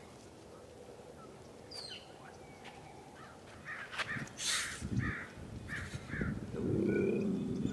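A man grunting and breathing forcefully as he strains through a weightlifting set, with short forced breaths in the second half and a longer drawn-out grunt near the end.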